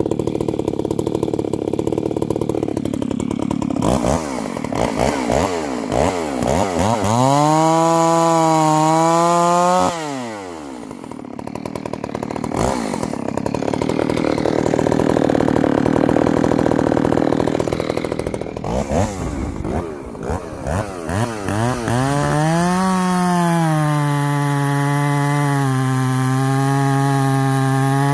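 A large two-stroke chainsaw, a G388, is revved up and down several times, held at full speed briefly, then dropped back. Near the end it runs steadily at high speed under load, cutting into a big log.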